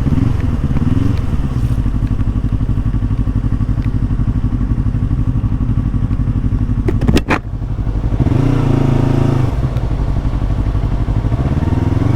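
Yamaha R25's parallel-twin engine running as the bike is ridden, its revs rising and dropping a few times. A brief sharp knock about seven seconds in.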